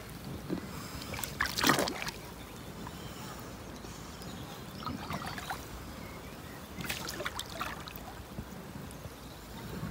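Shallow lake water sloshing and splashing around a large carp as it is held in the water by hand and released. A few short splashes stand out, the loudest about a second and a half in.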